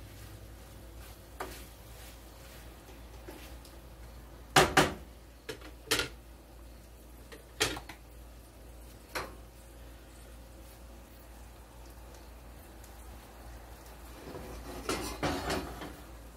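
Cooking utensils knocking against a skillet and being set down on a plate. There is a sharp double clack about four and a half seconds in, a few single knocks over the next few seconds, then a run of clattering near the end.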